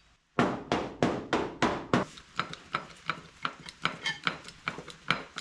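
Quick hammer blows on the dented front sheet-metal body of a 1979 Ford F250, beating the dent out. They come at about four a second, the first half dozen heavier and the rest lighter taps.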